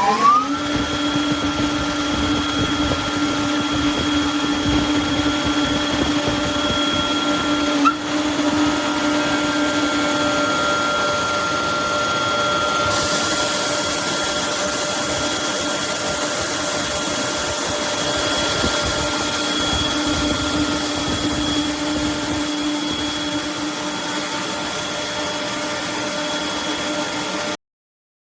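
Renner RS 11 screw compressor running steadily, with a constant motor whine. There is a single click about eight seconds in, a brighter hiss joins about halfway through, and the sound cuts off suddenly near the end.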